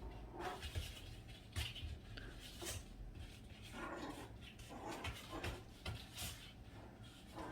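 A Maltese puppy making a string of short, soft sounds, with a few light clicks between them.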